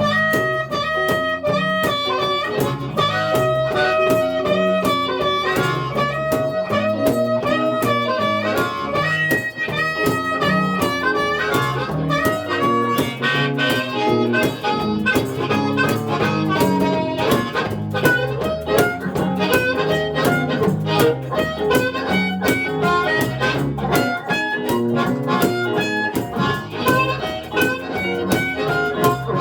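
Live blues music: a harmonica playing long held notes and phrases over a steady rhythmic guitar accompaniment.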